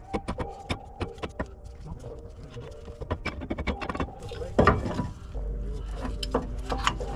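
A run of light clicks and knocks, like tools or parts being handled, with one louder knock about four and a half seconds in and a low rumble joining about a second later.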